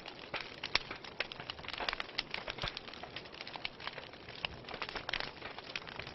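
Wood fire crackling in a fireplace: dense, irregular pops and snaps over a steady hiss.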